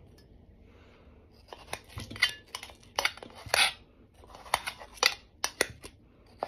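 A kitchen knife cutting watermelon in a steel bowl, the blade knocking and scraping against the metal in a string of short sharp clicks, starting about a second and a half in, with one longer scrape near the middle.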